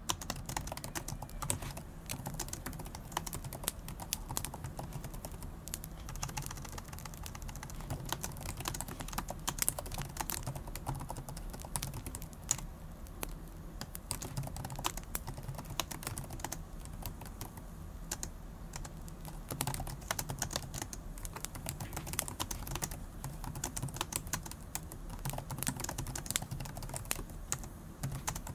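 Typing on a laptop keyboard: fast, irregular key clicks that go on without a break.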